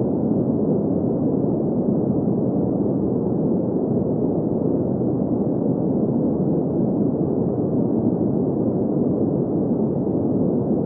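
Steady green noise: an unchanging hiss of noise centred in the low middle of the range, with no high end, that neither rises nor falls.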